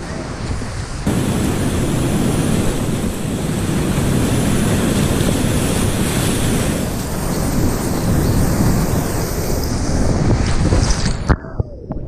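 Class V whitewater rapids rushing and churning loudly around a kayak, with water splashing and buffeting the microphone. Near the end the hiss cuts off sharply and the sound turns muffled.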